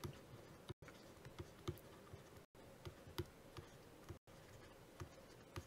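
Faint, irregular ticks and taps of a stylus on a tablet as words are handwritten, over a very faint steady hum.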